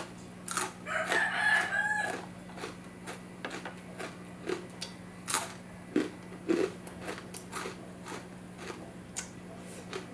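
A rooster crows once, a call of about a second starting about a second in. Close, repeated crunches and clicks of chewing crisp pork crackling run throughout.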